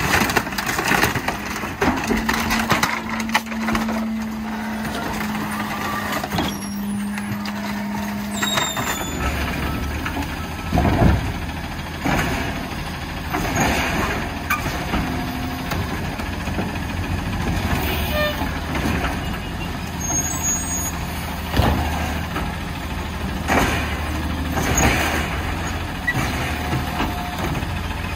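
Rear-loader garbage truck's hydraulic packer running with a steady whine as it compacts bulky furniture. After that, a side-loader garbage truck's diesel engine runs steadily while its automated arm works the carts, with several sharp knocks.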